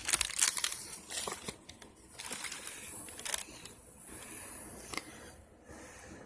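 Packaging crinkling and rustling in irregular spurts with small clicks as little tassels are worked out of it by hand, fading toward the end.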